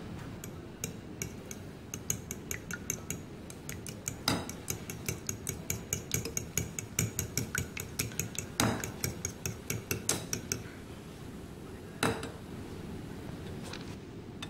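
A fork beating egg in a bowl for an egg wash, its tines clicking against the bowl about four times a second for several seconds, then a few single knocks near the end.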